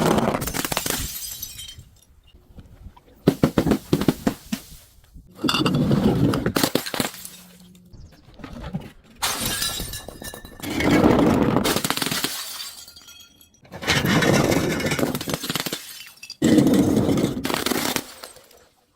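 Glass being broken and crushed, with crunching and crackling, in a run of about seven separate short bouts. Several of the bouts start or stop abruptly.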